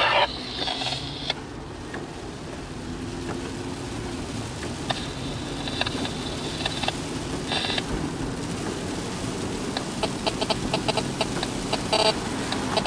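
A car driving slowly in the rain, heard from inside the cabin: steady engine and road noise with rain on the windshield, and a run of light clicks near the end.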